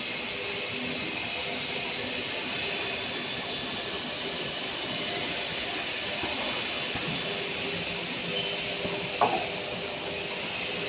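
Double-head aluminium profile cutting saw running, its blade motors giving a steady whir with a constant hum. A brief sharp sound stands out about nine seconds in.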